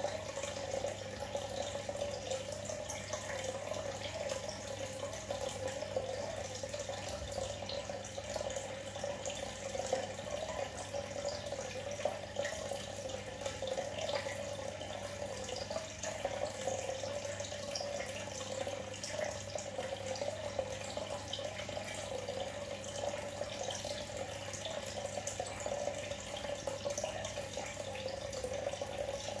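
Aquarium water bubbling and trickling steadily as air bubbles rise from an aeration line, with faint small drips and a low steady hum underneath.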